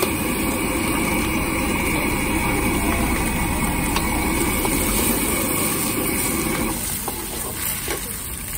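Egg sizzling in hot oil in a wok over a gas burner that runs with a steady rush, with a few light taps of a metal ladle on the wok. The rush drops somewhat about seven seconds in.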